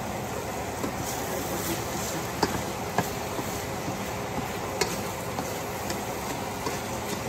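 Pork and tomatoes sizzling steadily as they sauté in a stainless steel pan, with a spatula knocking against the pan three times as the mixture is stirred.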